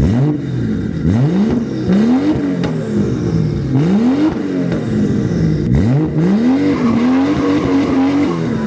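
Turbocharged B58 inline-six in a BMW E24 revving hard, its pitch sweeping up and falling back several times in a row.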